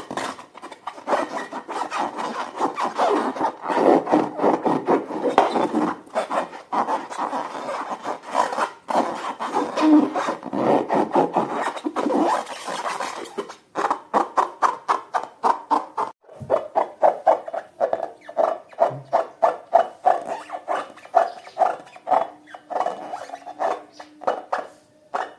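Slime being worked by hand: repeated wet squishing and rubbing strokes, settling into a steady rhythm of about three a second over the second half.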